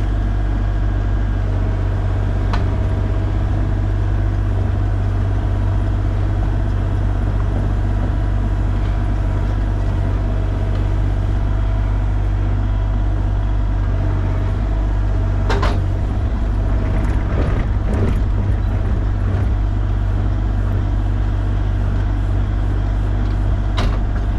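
Excavator engine running steadily under load as the bucket digs, with a few sharp knocks and scrapes from the bucket: one about two and a half seconds in, a cluster a little past the middle, and another near the end.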